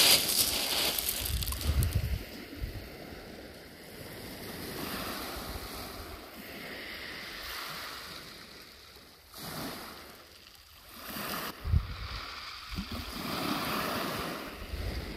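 Sea surf washing up and drawing back on a shingle beach, swelling and fading, with gusts of wind buffeting the microphone now and then.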